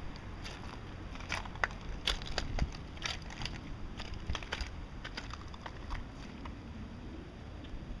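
Footsteps crunching on dry oyster shells and shell gravel: an irregular run of sharp cracks and crunches that thins out after about five seconds, over a low steady rumble.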